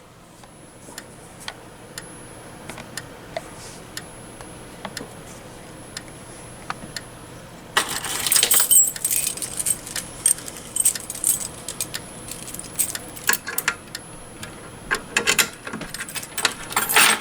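Faint regular ticking with a thin high whine from the flashing remote strobe of a fire alarm. From about eight seconds in, a key ring jangles and metal clicks as the reset key is worked into the pull station's lock.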